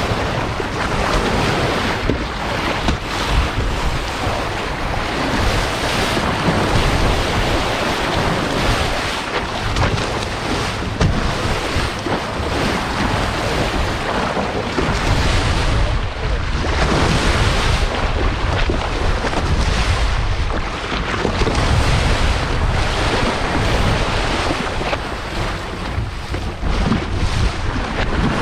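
Wind blowing across the microphone over the sound of waves and water against a boat offshore, a steady rushing noise with gusts that rise and fall.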